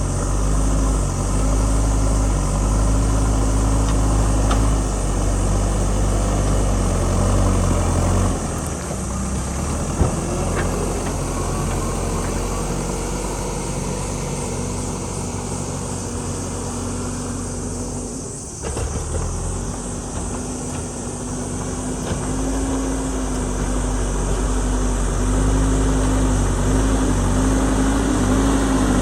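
JCB ecoXcellence backhoe loader's diesel engine running under changing load: it eases off about eight seconds in and picks up again, wavering, in the last third. A single sharp knock sounds about ten seconds in.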